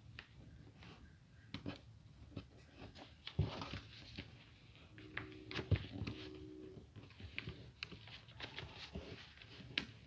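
Thin paper rustling and being creased by hand during folding, with scattered soft clicks and two louder knocks against the table, about three and a half and nearly six seconds in.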